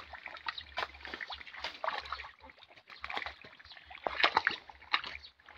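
Shallow pond water splashing and sloshing in short, irregular splashes as people wade and grab at fish in the drained pond.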